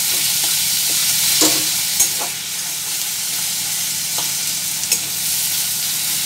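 Chopped tomato and browned onion sizzling in hot oil in a metal kadai, stirred with a spatula that scrapes and clicks against the pan a few times, most sharply about two seconds in and near five seconds.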